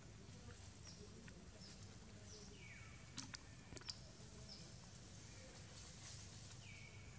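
Faint bird calls repeating every few seconds, each a whistle that glides down and then holds a steady note, over quiet background noise. A few sharp clicks come about three to four seconds in.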